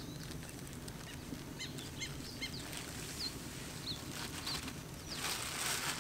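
Wild birds calling: a few short chirps about two seconds in, then a series of brief, falling whistled notes. A plastic bag rustles near the end.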